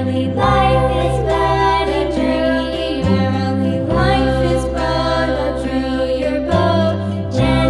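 Background music with singing over sustained bass notes that change every few seconds.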